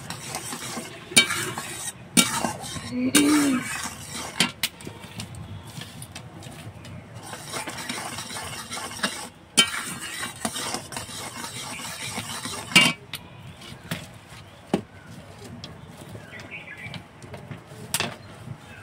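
Metal spatula stirring and scraping in a metal karahi of boiling jaggery syrup, with sharp clinks and knocks against the pan every few seconds over a steady bubbling sizzle. The jaggery is being boiled down to a one-thread syrup.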